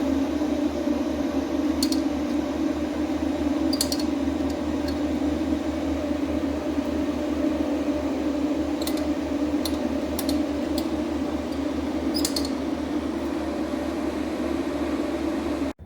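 A motor-driven machine running steadily at one even pitch, with a few light clicks scattered through it.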